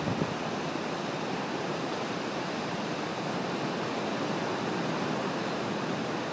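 Ocean surf breaking over rocks: a steady, even wash of noise.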